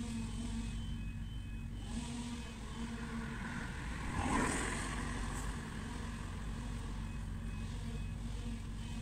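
A car passes close by about four seconds in, its sound swelling and fading over a steady low traffic hum.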